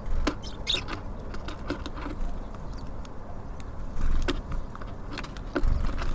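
Small birds at a feeder: scattered sharp taps and clicks of beaks pecking at seed and feet landing, with a few heavier thumps and low rumble about four seconds in and near the end.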